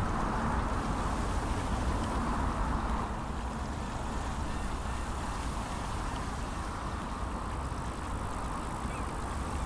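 Steady outdoor background noise: wind rumbling on the microphone over a low hum, with no distinct events. It eases a little about three seconds in.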